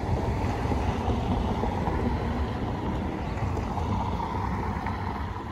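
Road vehicles driving by: a steady engine and tyre rumble that slowly fades toward the end as they pull away.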